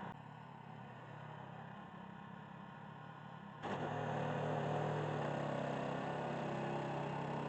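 An engine running steadily, heard in clips cut together. From about three and a half seconds in it is louder, with a steady low hum.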